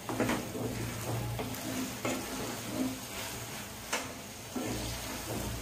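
Wooden spatula stirring and scraping spiced minced beef around a nonstick pan as it sizzles gently, with a few sharp knocks of the spatula on the pan. The mince is in its last minutes of dry-frying.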